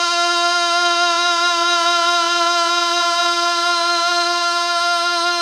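A male naat reciter's voice holding one long sung note, unaccompanied and steady in pitch.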